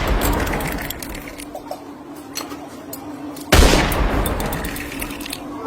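A loud gunshot about three and a half seconds in, fading away over a couple of seconds, with the fading tail of a previous shot at the start. Scattered small clicks come between the shots.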